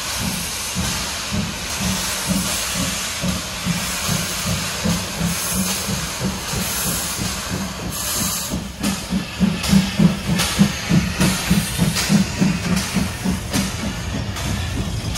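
MÁV class 424 steam locomotive moving slowly, with a steady hiss of steam escaping around the cylinders and a rhythmic chuffing beat underneath. The beat grows louder from about nine seconds in as the engine draws alongside.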